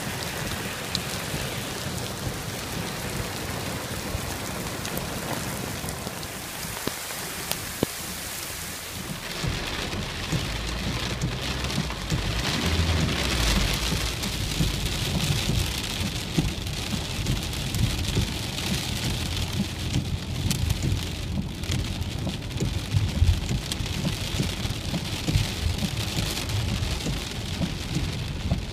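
Heavy, pounding rain of a thunderstorm cloudburst pouring down steadily. About nine seconds in, a low, uneven rumble joins the rain and lasts to the end.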